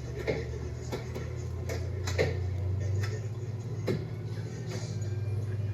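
Groceries being handled and set down: a few irregular light knocks and clicks over a steady low hum.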